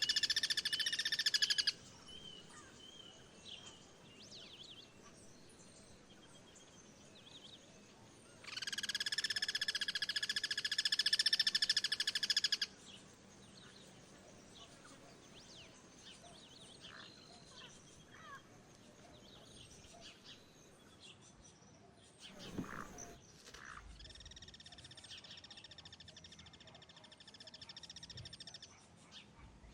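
Guira cuckoo giving rattling social calls, each a rapid, evenly pulsed call held at one pitch for about four seconds. One call ends just after the start, a loud one comes about nine seconds in, and a fainter one comes near the end. Faint chirps of other birds fill the gaps, and there is a brief low thump a little past the middle.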